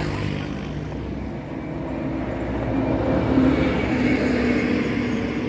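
A small engine running nearby, its pitch climbing partway through as it speeds up.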